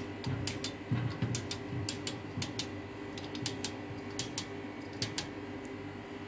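Illuminated push-button switches on a wall-mounted lighting control panel being pressed one after another: a quick, irregular run of sharp clicks over a steady low hum.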